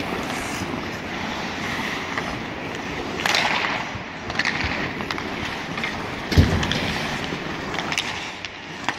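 Ice hockey skates scraping and carving on the ice, with short clacks of sticks on the puck. A louder skate scrape comes a little past three seconds in, and a heavy thump comes a little past six seconds.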